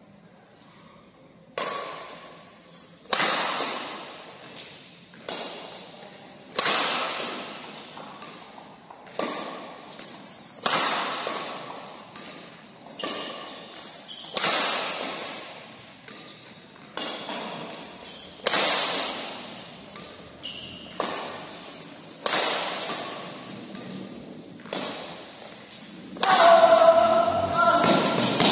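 Badminton rackets striking a shuttlecock over and over, each hit a sharp crack that rings on in a large echoing hall: a quieter distant lift followed by a loud near jump smash, repeating about every four seconds. Near the end a longer, louder sound with a held pitch.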